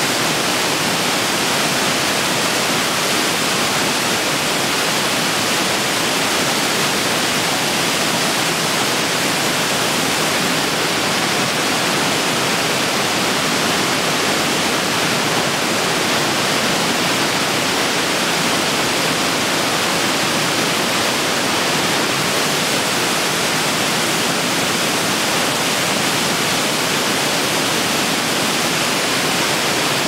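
A waterfall: water pouring and splashing in a loud, steady rush that does not change.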